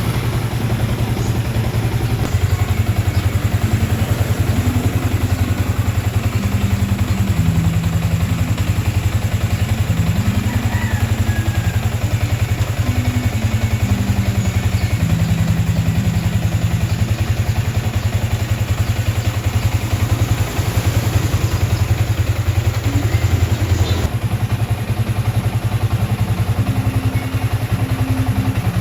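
Yamaha Sniper 155 VVA's 155 cc single-cylinder four-stroke engine running at a steady, even speed with a fast, regular exhaust pulse. It steps up slightly a couple of seconds in and settles back a few seconds before the end, with no revving.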